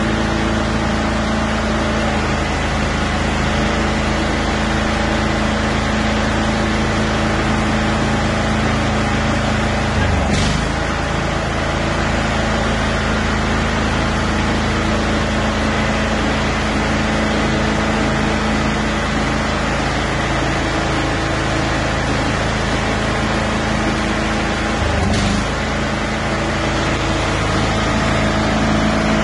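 Toro Wheel Horse 16-38 HXL lawn tractor engine running steadily while the drive pedal is worked. Twice, about 10 and 25 seconds in, a short knock comes with a brief dip in the engine note.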